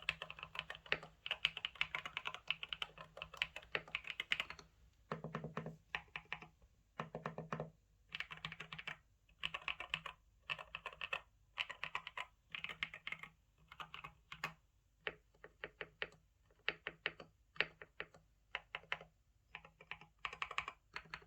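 Typing on a GMK67 mechanical keyboard with Akko V3 Pro Cream Yellow linear switches. A steady run of keystrokes for the first four seconds or so, then short bursts of key clicks separated by brief pauses.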